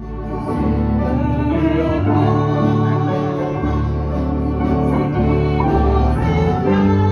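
A small band playing a Christian song live: accordion with acoustic and electric guitars, with held reedy chords over a steady bass line.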